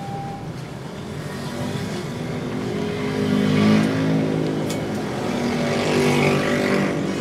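Motorcycles and cars accelerating away over a railway level crossing, heard from inside a bus, their engines rising and falling as they pass. The engine sound swells about halfway through and again near the end.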